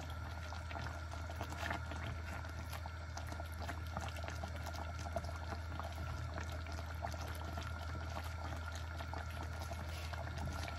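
Coconut-milk sauce with chicken and livers bubbling at a simmer in a wok, a steady fizzing crackle of small pops, with soft sounds of a silicone spatula stirring through it. A steady low hum runs underneath.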